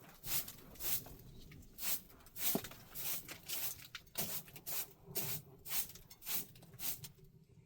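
Rhythmic scraping strokes, about two a second, each a short hiss.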